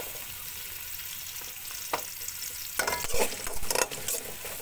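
Garlic, onion and ginger sizzling in hot oil in an aluminium pot while a metal spoon stirs and scrapes them. A few sharp clinks of the spoon against the pot, mostly in the second half.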